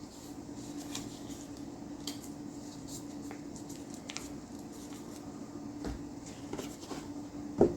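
Plastic model-kit box and parts bag being handled: scattered light clicks and crinkles, with one louder knock near the end. A steady low hum runs underneath.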